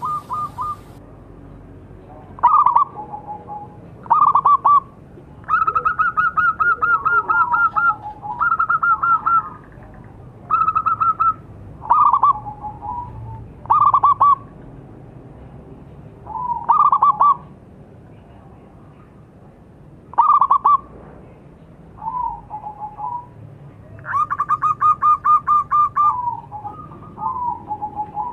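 Local zebra dove (perkutut) cooing: about a dozen phrases with short pauses between them. Each phrase is a quick run of clipped notes that often drops to a few lower notes at the end, and a couple of the phrases are long drawn-out rolls.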